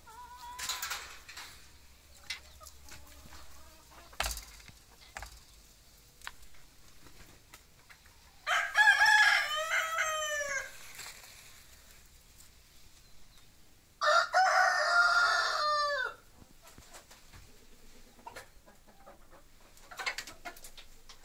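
Rooster crowing twice, a long crow about eight seconds in and another about fourteen seconds in, each about two seconds long and dropping in pitch at the end. Hens cluck briefly and softly near the start and near the end.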